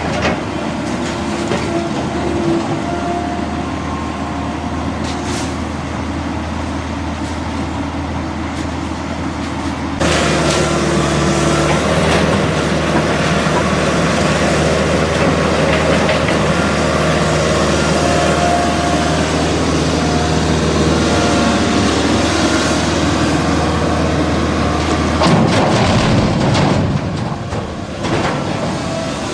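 Kobelco hydraulic excavator working, its diesel engine running steadily under the rough noise of demolition debris. It gets louder about ten seconds in, with a noisier burst near the end.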